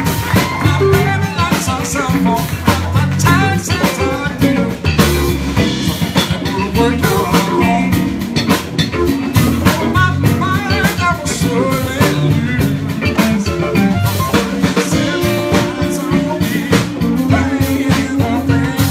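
Live funk band: an electric bass played slap-style over a drum kit and electric guitars, with a busy, punchy bass line.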